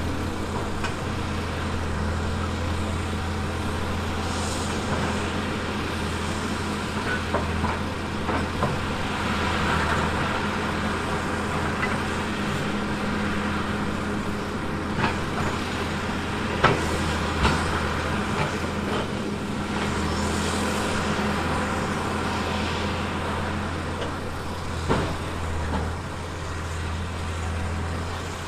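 Diesel engine of a heavy earthmoving machine running steadily, with a few sharp knocks and clanks a little past halfway and again near the end.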